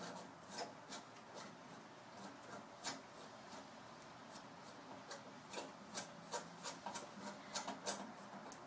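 Faint, irregular clicks and light rubbing, as of small parts being handled, with no engine running.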